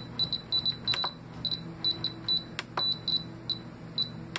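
Spektrum DX6i radio transmitter beeping as its menu settings are scrolled through: a run of short, high beeps at irregular spacing, several a second at first, then slower, with a few sharp clicks.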